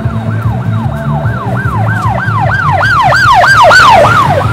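Scooter anti-theft alarm sounding: a loud siren of rapid rising-and-falling whoops, about three a second, growing louder toward the end.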